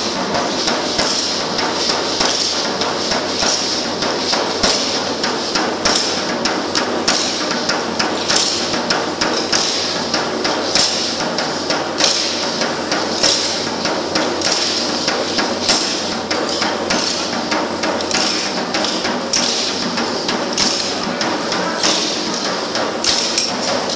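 A Matachines troupe dancing: a dense, steady clatter of stamping steps and knocking, several sharp clacks a second with a hissing rattle above them.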